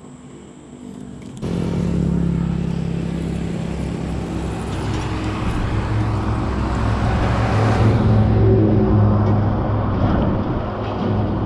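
A motor vehicle's engine running close by, starting abruptly about a second and a half in and swelling around the middle before easing slightly.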